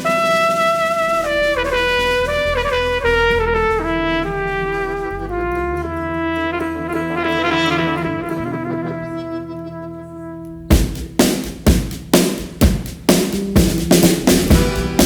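Trumpet playing a slow melody of held notes over a soft low accompaniment; about ten and a half seconds in, the rock band's drums come in with hits about twice a second.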